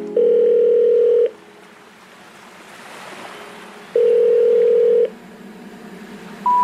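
Telephone call tones: a steady ring tone sounds twice, about a second each and a few seconds apart, with a soft hiss between. Near the end come three short beeps stepping up in pitch, the special-information tone that precedes an 'number not reachable' recorded message.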